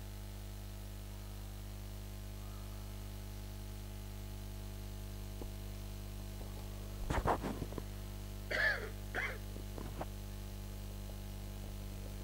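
Steady low electrical hum on the audio track. About seven seconds in there is a brief cluster of sharp knocks, followed by two short vocal sounds, sneeze- or cough-like.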